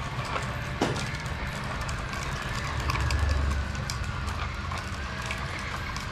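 A train of hard plastic toy trucks, towed on a string by a small RC truck, rolling and rattling over a concrete floor, with many small clicks throughout and a low rumble that swells near the middle.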